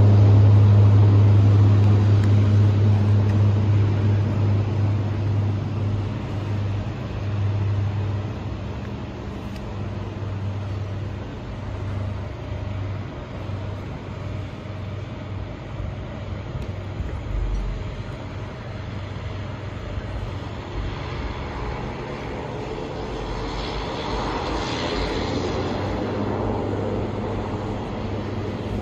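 Floatplane's propeller engine droning on the water, fading as the plane moves away, then swelling again with a broader roar near the end as it powers up.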